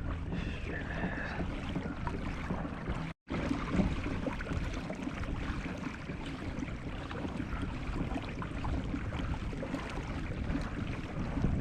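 Wind buffeting the microphone over water washing along the hull of a kayak under way, a steady low rushing with one brief break about three seconds in.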